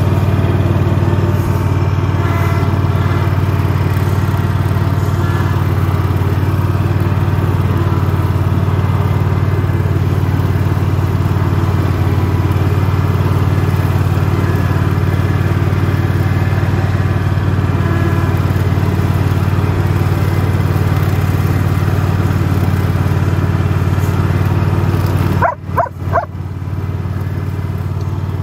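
Single-cylinder petrol engine of a Rabbit Mower ride-on lawn mower running steadily at mowing speed, with an even low hum. Near the end the engine sound drops away abruptly.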